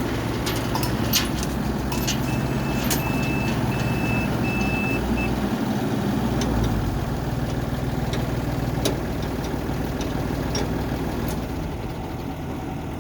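Yanmar combine harvester's engine running steadily. About two seconds in comes a run of five or so short high beeps, and a few clicks sound early on.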